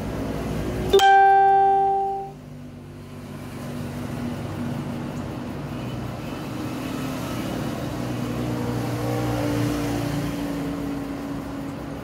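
A single loud ringing note, sounded suddenly about a second in and dying away over about a second, followed by a quieter low hum.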